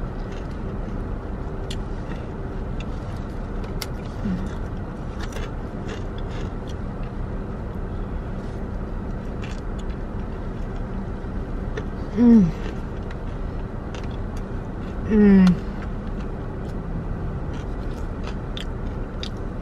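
Steady idling hum inside a parked car, under scattered wet clicks and smacks of someone chewing a sub sandwich. Two short hummed "mmm"s of enjoyment come about twelve and fifteen seconds in.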